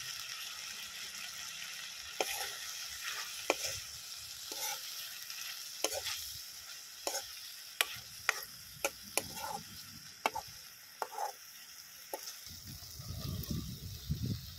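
Tomato and masala sizzling in hot oil in a kadhai, with a steel ladle clicking and scraping against the pan as it is stirred. Near the end a louder low rumble comes in.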